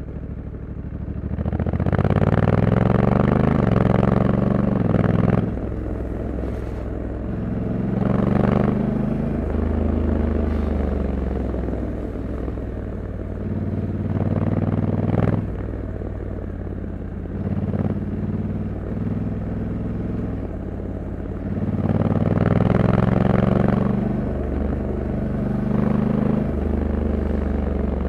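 Honda Africa Twin 1100 DCT's parallel-twin engine running under way, heard from the bike. Four times it pulls harder, rising in pitch and loudness, then drops off sharply. In between it settles to a steadier, lower note.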